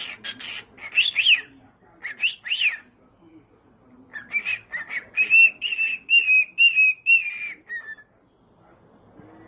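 Parrot whistling and chirping: a few squeaky calls that swoop up and down, then a run of about six clear, evenly pitched whistled notes that stop about eight seconds in.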